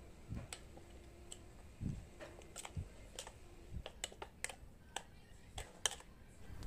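A spoon clicking and scraping irregularly against a stainless steel bowl as chicken wings are stirred in sauce.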